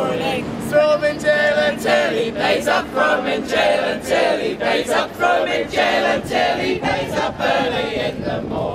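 A group of people singing together, many mixed voices at once.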